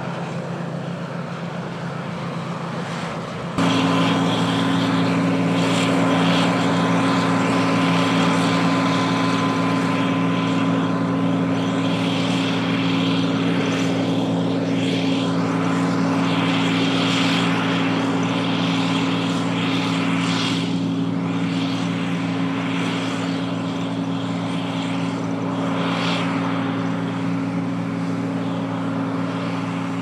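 John Deere 9580i WTS combine harvester running steadily while harvesting wheat: a constant engine and threshing hum with several steady low tones and a faint high whine. The sound steps up abruptly about three and a half seconds in and stays steady from then on.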